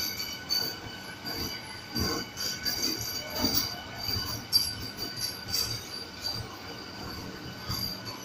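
Vande Bharat Express (Train 18) electric multiple unit rolling slowly alongside the platform as it arrives. Its wheels give irregular clicks and knocks over the rail joints, under a thin, steady high squeal.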